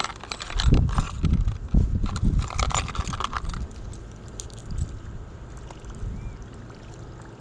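Plastic tackle box and lures clattering and clicking as they are rummaged through, with low bumps on the microphone over the first few seconds. After that it settles to a quieter steady hiss with a few faint ticks.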